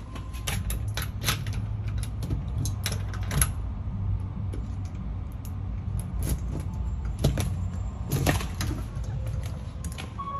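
Keys jangling and a key working a door lock: a run of sharp metallic clicks and rattles, with a denser cluster about eight seconds in, over a steady low hum.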